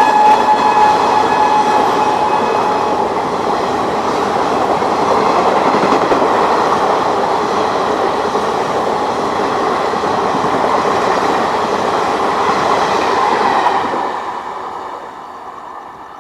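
Express train of LHB coaches hauled by a WAP-7 electric locomotive passing at about 120 km/h. The tail of the locomotive's shrill horn fades out over the first couple of seconds. Then comes a loud, steady rush of wheels on rails with clickety-clack as the coaches go by, falling away about 14 seconds in as the last coach passes.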